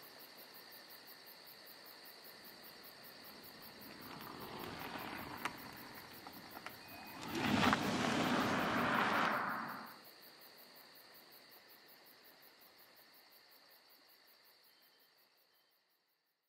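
Tesla Model S electric car passing on a tarmac road: a swell of tyre and road noise with no engine sound, building from about four seconds in, loudest around eight seconds, then dropping off suddenly. Behind it a steady high-pitched insect chirring that fades out near the end.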